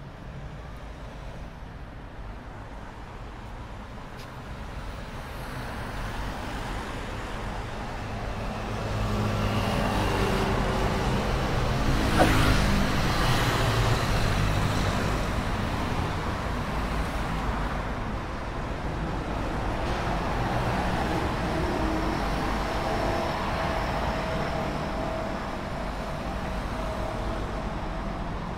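Road traffic on a city avenue: cars and other motor vehicles driving past, the rumble growing louder about a third of the way in and swelling and easing as vehicles pass. A short sharp click comes near the middle, at the loudest moment.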